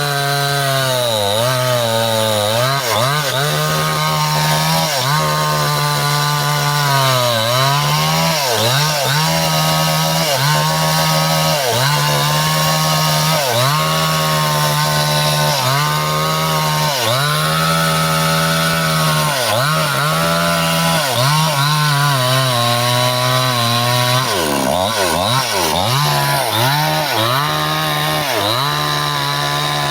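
Stihl two-stroke chainsaw running at high revs while cutting through wood, its engine note dipping and recovering every second or two as the chain bites and comes off the load, with a run of quick dips near the end.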